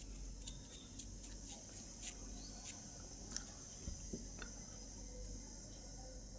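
Faint light clicks and taps of small plastic parts of a keyboard cleaning kit being handled, mostly in the first half, over a steady high-pitched hiss.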